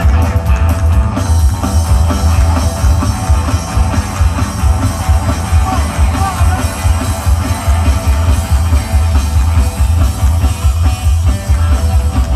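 Live rockabilly band music played loud: electric guitar, upright bass and drum kit, with a heavy pulsing bass.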